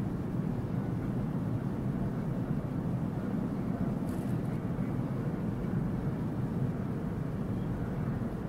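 Steady low rumble of distant vehicle noise, with a brief faint hiss about four seconds in.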